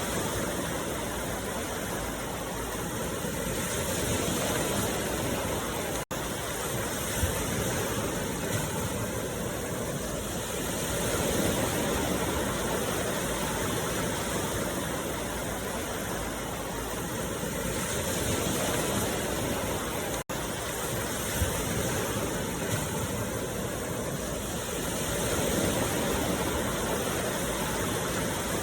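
Steady rushing noise with no tune or voice in it, swelling and easing about every seven seconds. It cuts out for an instant twice, each time followed shortly by a faint click.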